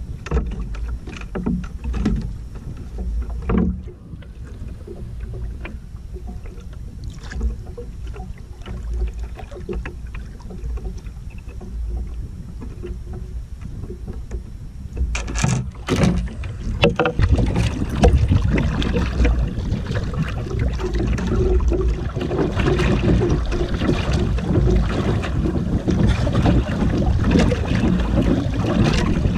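Wind buffeting the microphone and sea water slapping against the hull of a small outrigger canoe, with scattered knocks in the first half. From about 16 s in it turns into a louder, steady rush of water and wind.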